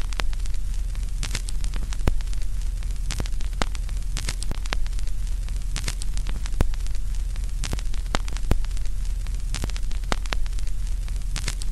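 Vinyl record surface noise with no music: a steady low hum under scattered crackles and pops.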